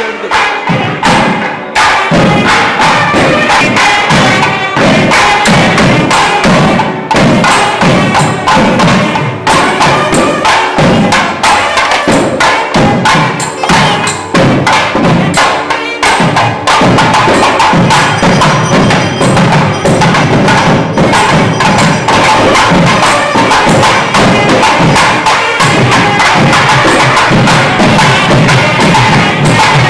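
Several thavil drums played loudly in a fast, dense rhythm of sharp cracking strokes, with a nadaswaram reed melody carried over them. About halfway through, the drumming settles into a steadier, more even roll.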